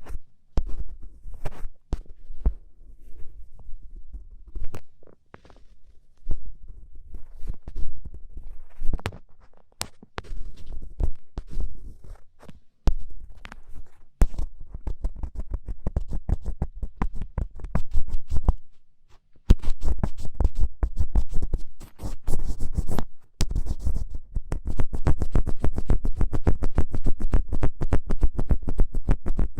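ASMR ear pick scratching hard and close against the microphone, a dry kari-kari scraping. The strokes come in irregular bursts at first, then run fast and steady for the last third.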